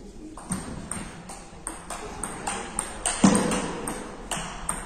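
Table tennis rally: the ball clicking off the bats and the table in quick alternation, a few hits a second, with one heavier thump a little after three seconds in.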